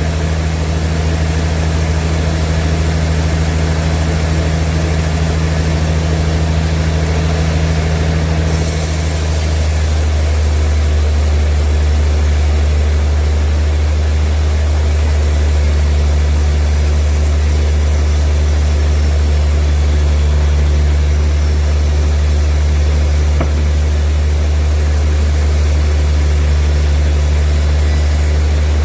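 Heavy sawmill machinery engine running steadily, a loud low hum with no cutting heard. About nine seconds in the hum shifts slightly and a faint very high whine joins it.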